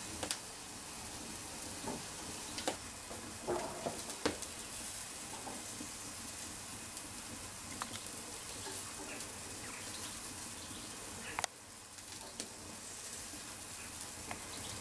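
Burgers and sausages sizzling on a barbecue grill over wood embers: a steady hiss with scattered clicks and knocks.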